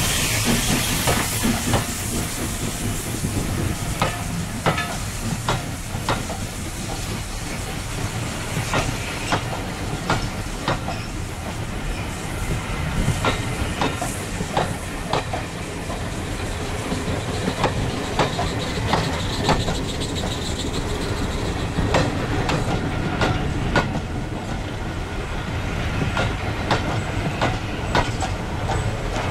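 Passenger coaches of a steam-hauled train rolling past close by, their wheels clicking irregularly over rail joints the whole time. A hiss of steam from the passing locomotive is louder at the start.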